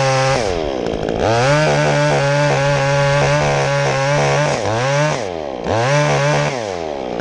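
Two-stroke chainsaw run at full throttle cutting wood, its pitch wavering under load; it drops off the throttle about half a second in and revs back up, blips down and up again around five seconds, and eases off near the end.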